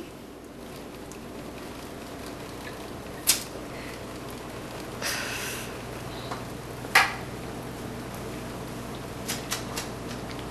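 Quiet room tone with a steady low hum, broken by a few sharp small knocks or clicks, the loudest about three and seven seconds in, and a brief breathy hiss around five seconds.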